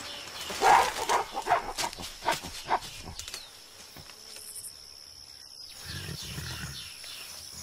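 Mountain gorillas calling: a rapid series of short, loud, harsh calls over the first three seconds, then a softer low rumbling grunt about six seconds in.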